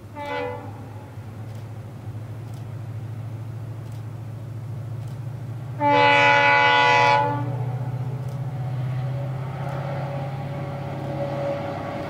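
A WDP4D diesel locomotive sounds its horn: a short blast right at the start, then a louder one about six seconds in that lasts about a second and a half. Under the horn is the steady low rumble of the diesel train running.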